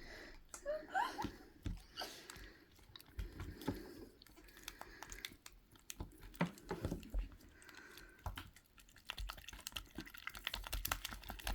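PVA glue and slime activator being stirred in a pot: soft wet squelches and irregular light clicks of the stirrer against the pot, the clicks coming faster near the end.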